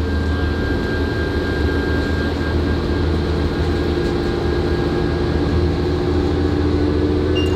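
Steady low mechanical rumble with a faint hum, like an engine or vehicle running, unchanging throughout.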